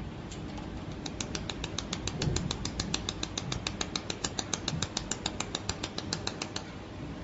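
Pulsed laser welder firing: a fast, even train of sharp snapping ticks, about seven a second, each tick one laser pulse striking the metal part. The ticks start about a second in and stop shortly before the end.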